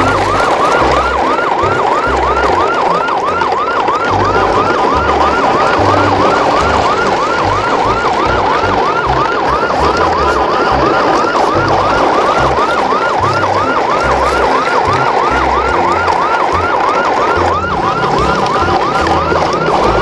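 A siren yelping, its pitch sweeping up again and again, about three times a second, over a low, pulsing bass.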